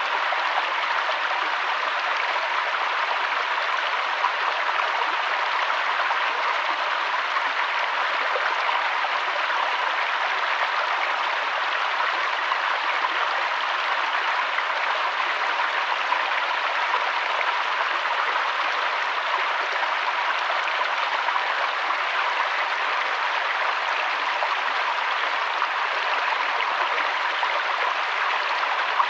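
River water flowing over stones: a steady, even rush of water.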